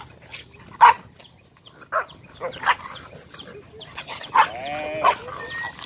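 Dogs barking while they wrestle in play: a string of short, sharp barks, the loudest near the start, with a longer drawn-out cry about four and a half seconds in.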